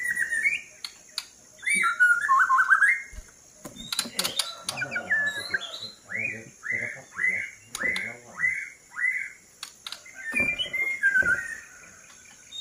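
White-rumped shama singing loud whistled phrases that glide up and down, with a run of about six repeated down-slurred notes in the middle. A few sharp clicks sound among the song.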